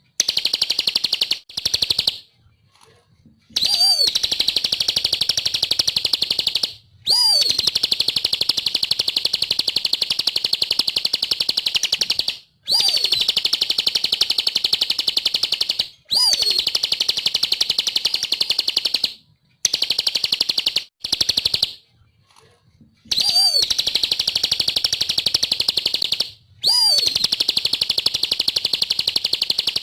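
Bar-winged prinia (ciblek) singing gacor-style: a very fast, buzzy trill held for several seconds at a time. The trill repeats in about ten phrases with short breaks between them, and most phrases open with a quick falling note.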